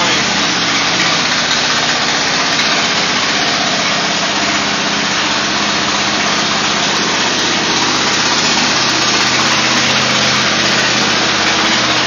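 Steady running of the engine-driven hydraulic power unit that drives a compressed earth block press, a continuous mechanical hum with even noise over it.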